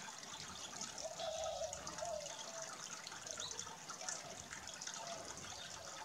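Faint water trickling and dripping.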